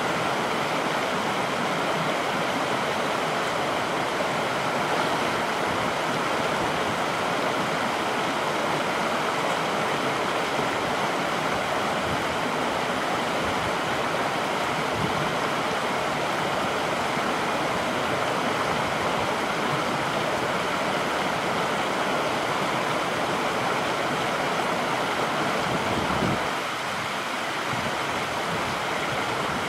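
Fast, foaming water rushing out from under a corrugated metal gate, a steady, even rush of water. Near the end the deeper part of the sound drops away and it gets slightly quieter.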